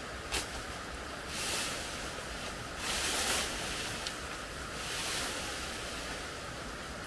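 Bamboo leaves rustling in three swells as a tall bamboo culm is tugged and shaken by hand, with a couple of small clicks from the stem, over a steady background hiss.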